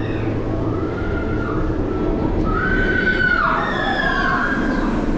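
RMF Dragon roller coaster in motion, heard from a rear seat: steady rumble and wind noise, with several high-pitched squeals that hold one pitch and then drop away, about a second in, around three seconds in and near the end.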